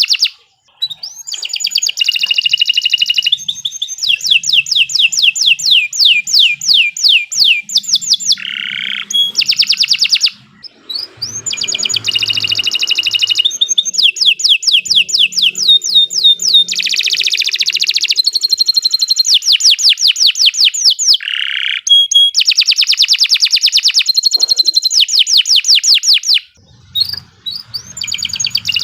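Domestic canary singing a long, loud song of fast trills: runs of rapidly repeated high notes, some sweeping down in pitch, with a few short pauses between phrases.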